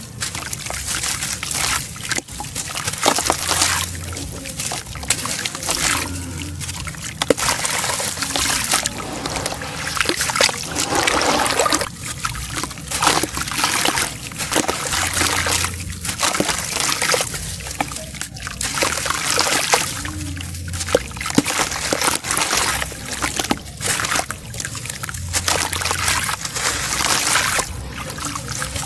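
Crumbly sand-cement chunk being dunked, squeezed and broken apart by hand in a basin of water: water sloshing and trickling, with crisp crunching and crackling as the wet chunk breaks into pieces.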